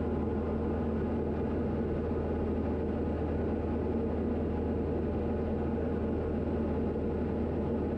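Steady cabin drone of a Diamond DA40 single-engine propeller plane in level cruise: engine, propeller and airflow as an even low rumble that holds constant throughout.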